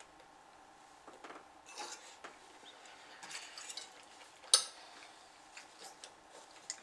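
Fork clinking and scraping on a metal tin plate while noodles are eaten: scattered light clinks, with one sharp, louder clink about four and a half seconds in.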